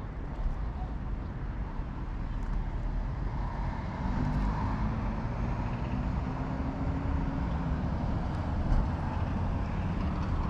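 Steady low outdoor rumble of road traffic, with a passing motor vehicle's engine hum swelling about four seconds in and fading out about four seconds later.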